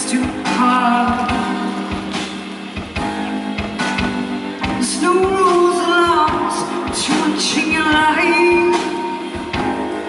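A woman singing live into a microphone over band accompaniment, her melody gliding and holding notes over steady instrumental backing through the PA.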